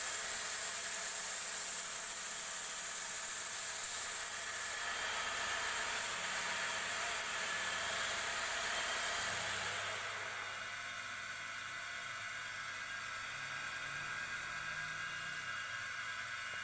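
Wood lathe running while a turned wooden bed leg is sanded by hand against the spinning wood, a steady hiss over the motor's hum. About ten seconds in the hiss drops away, leaving the lathe's hum.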